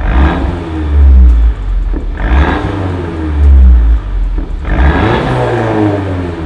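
Mercedes-Benz CLA250's turbocharged four-cylinder revved three times through an Armytrix valved cat-back exhaust with the valves open, each rev dropping back toward idle.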